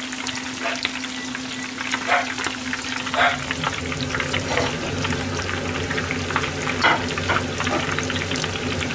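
Wakasagi (pond smelt) tempura deep-frying in a pan of hot oil, bubbling and crackling steadily with scattered sharp pops as the batter crisps. A steady low hum runs underneath.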